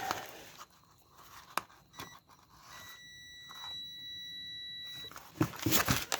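Digital multimeter on its continuity setting beeping: a brief beep about two seconds in, then a steady high beep held for about two and a half seconds, the meter's signal that it sees a closed circuit. Light handling clicks come before it.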